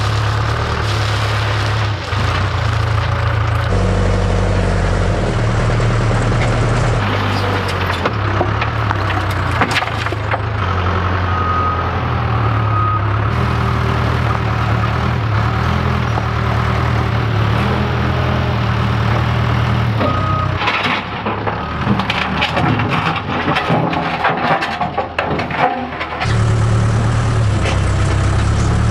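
Case 580K backhoe loader's diesel engine running steadily as the loader bucket dumps and scoops gravel and dirt. About two-thirds of the way through comes a stretch of rattling and clanking, rock scraping against the steel bucket.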